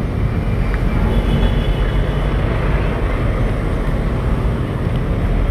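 Busy road traffic at close range: motorcycles, minibus taxis and a heavy truck passing, their engines making a steady, dense rumble.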